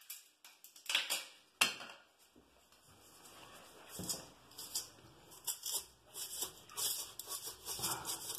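Thin cedar shims being handled and pushed under a porcelain toilet base on a tile floor: a few sharp knocks in the first two seconds, then a run of short scrapes and taps near the end as a shim is shoved into the gap.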